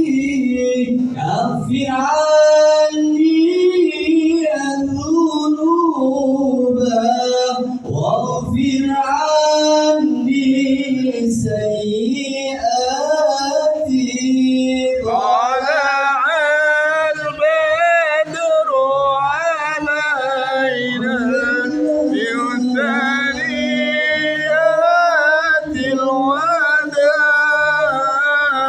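Sholawat, an Arabic devotional song praising the Prophet, sung with long, ornamented melodic lines. About halfway through a higher voice takes over with a wavering, melismatic line.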